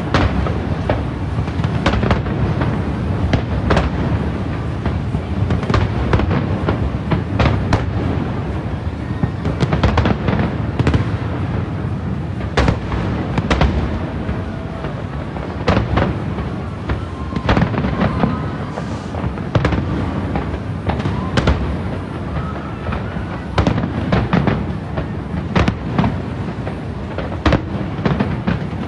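Aerial firework shells bursting in a dense, continuous barrage of sharp bangs and crackle.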